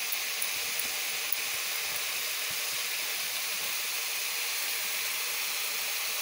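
Ridge gourd and potato pieces frying in a little oil in a kadai, giving a steady, even sizzle.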